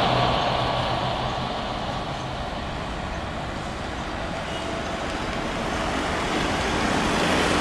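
Airbus A350 airliner's Rolls-Royce Trent XWB jet engines, a steady rushing roar as the aircraft rolls along the runway, easing a little in the middle and growing again near the end.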